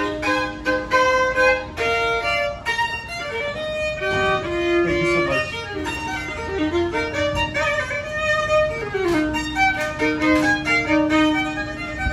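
Violin playing a melody of sustained notes, some sliding into the next.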